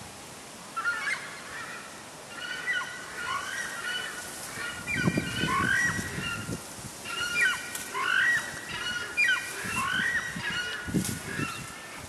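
A chorus of honking bird calls, several voices overlapping in short repeated notes, from about a second in until near the end. Low rustling comes in around the middle and again near the end.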